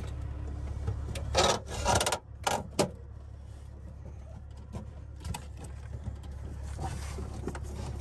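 Rubber hoses and a power cord being pulled and rubbed against each other and the cabinet by hand, with a few short rustling scrapes in the first three seconds and fainter ones later. A steady low hum runs underneath.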